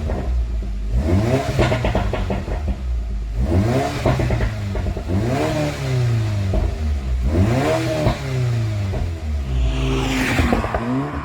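Audi S3 8V's 2.0 TFSI turbo four-cylinder revved about five times through a sport exhaust, each rev rising and falling in pitch. On each drop in revs the exhaust crackles and pops from a pops-and-bangs engine map.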